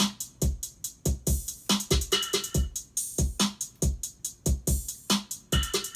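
Programmed electronic drum beat looping from music production software: deep kick drums, sharp snare hits and bright hi-hats in a steady rhythm, with a short pitched stab recurring every few seconds.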